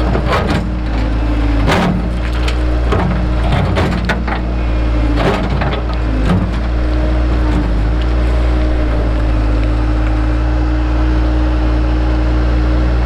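A machine engine runs steadily throughout while rock is being dug out. Irregular knocks and clatter of rock sound over the first six seconds or so, then stop.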